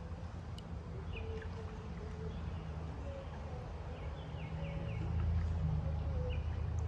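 Kayak drifting on a slow river: a steady low rumble of water against the hull, growing louder about five seconds in, with birds chirping in short phrases.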